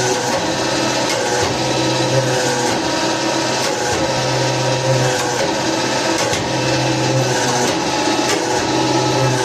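Motor of a homemade metal-forming press running steadily, with a deeper hum that comes in for about a second roughly every two seconds.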